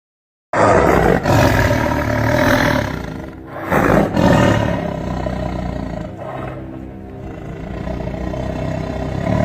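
Loud car engine revving hard, starting abruptly, its note rising and falling with a brief dip about three seconds in before building again.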